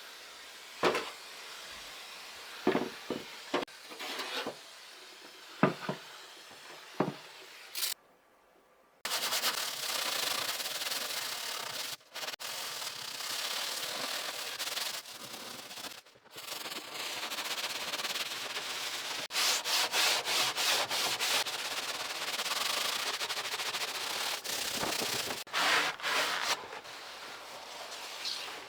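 Sanding wood by hand: a steady abrasive rubbing with a run of quick back-and-forth strokes. A few sharp knocks of handling come before it.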